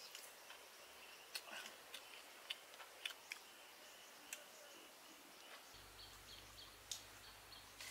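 Near-quiet outdoor ambience: a faint steady high hiss with short, sharp clicks and ticks scattered through it.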